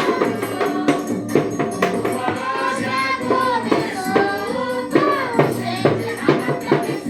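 Music with singing voices and a steady shaken-percussion beat like a tambourine.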